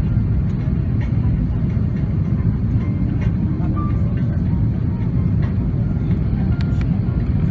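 Steady low roar of an Airbus A330-300 heard from inside the passenger cabin in flight: engine noise and airflow over the fuselage, even and unbroken.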